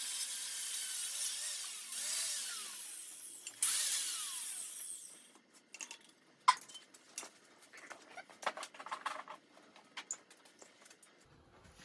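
Power tool, an angle grinder, running on steel with its whine wavering under load, then spinning down about five seconds in. After that come scattered sharp clicks and knocks of metal being handled.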